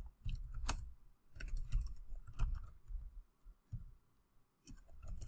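Computer keyboard keystrokes, typed in short irregular runs with brief pauses between them.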